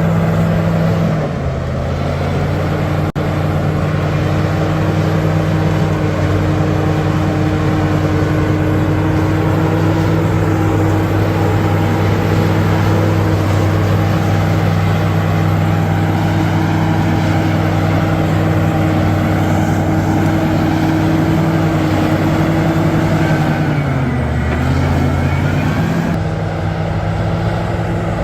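Large bulldozer's diesel engine running steadily, its pitch dropping a little about a second in, then sagging and picking back up near the end. A single sharp click about three seconds in.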